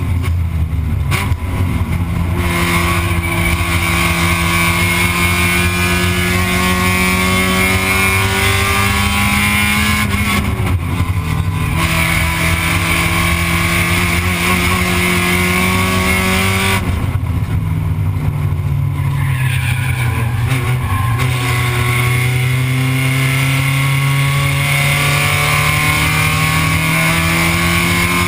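Spec Miata race car's four-cylinder engine heard from inside the cockpit at racing speed, its pitch climbing slowly as it pulls, dropping twice (about a third and about two-thirds of the way through) as the throttle eases, then climbing again, over steady road and wind noise.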